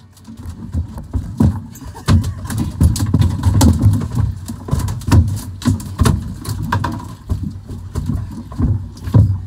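Irregular knocks and bumps on a body-worn camera and against the boat, over a steady low rumble of wind and handling noise on the microphone.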